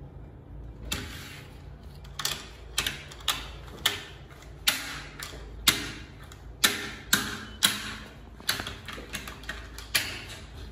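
A hand-held plastic dinosaur toy clacking over and over: about twenty sharp plastic clicks at an uneven pace, some in quick pairs, starting about a second in.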